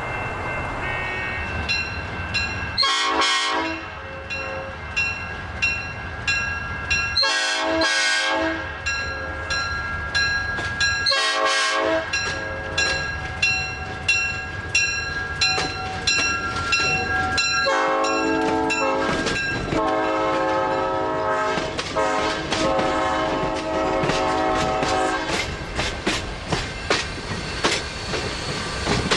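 Southern Pacific E9 6051's multi-note air horn sounding long held blasts. The chord drops lower about eighteen seconds in. Under it runs the steady clickety-clack of wheels over rail joints.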